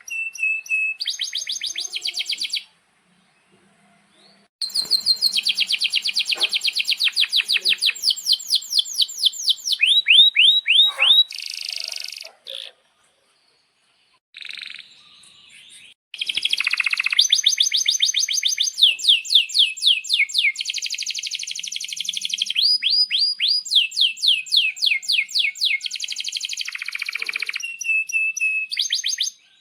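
Male domestic canary singing long rolling trills of rapid repeated high notes and chirps, in phrases broken by a few short pauses.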